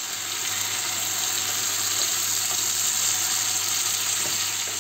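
Leeks, potatoes and pumpkin sizzling steadily in oil and butter in a pan over high heat.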